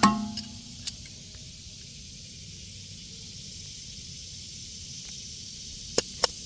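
Hand tools working on a metal blower motor mount: a metal clank that rings briefly at the start, a few light clicks, then a steady hiss, with two sharp clicks near the end as the motor is worked loose.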